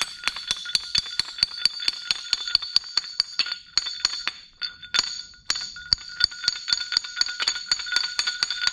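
Rapid metal-on-metal tapping, about four sharp strikes a second with a steady ringing from the struck steel and a couple of brief pauses: a small press-fit bearing being driven onto a pumping-unit gearbox shaft by hand, because heating it did not let it slide on.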